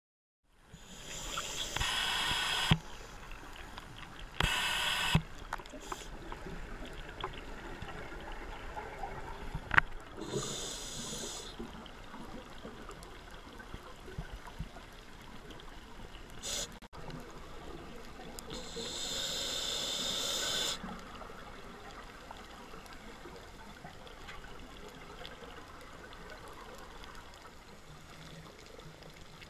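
A scuba diver's exhaled bubbles from the regulator, heard underwater through the camera housing: four bubbly bursts of one to two seconds, spaced irregularly, over a steady underwater hiss, with a couple of short clicks.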